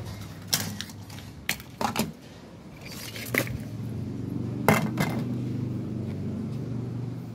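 Metal pots and utensils clink and knock sharply about half a dozen times, scattered irregularly, over a steady low hum.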